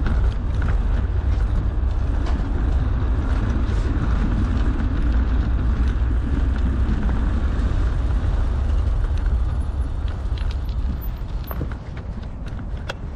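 Wind buffeting the microphone, with a steady low rumble from a bicycle rolling on a paved path. The rumble eases about ten seconds in as the bike slows to a stop, and a few sharp clicks and knocks follow.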